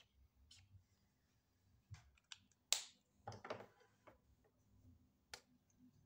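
A handful of sharp plastic clicks and taps against near silence, the loudest a little under three seconds in: felt-tip markers being handled as the blue marker is capped and put down and a red one picked up.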